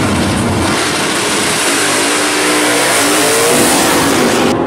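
Drag-racing muscle cars accelerating hard down the strip at full throttle, a loud continuous engine roar. The engine note climbs in pitch near the end.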